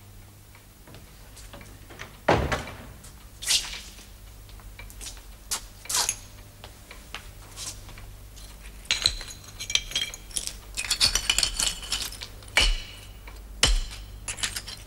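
Dishes and cutlery clinking and clattering as they are handled, with scattered knocks and a dull thump about two seconds in. The clinking grows busier and brighter in the second half.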